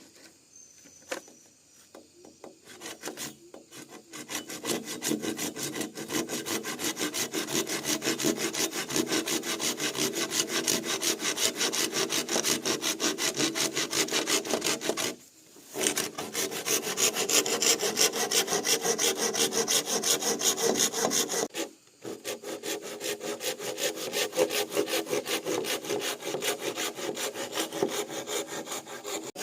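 Hand saw cutting through bamboo in fast, even back-and-forth strokes. It starts about four seconds in after a few light knocks and stops briefly twice.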